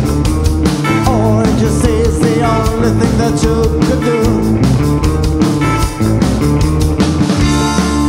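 Rock band playing live on drum kit, electric bass and electric guitars, with a steady driving beat. A lead part bends and wavers in pitch from about one second in to about four seconds in.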